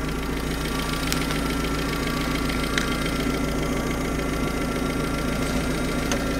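UAZ 31512's four-cylinder petrol engine idling steadily at about 800 rpm, its ignition timing still set well off. A few faint clicks sound over the idle.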